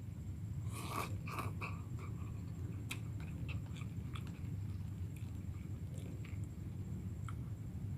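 Close-up eating of instant cup noodles in spicy broth: chewing with small wet mouth clicks, with a short cluster of louder eating noise about a second in, over a steady low hum.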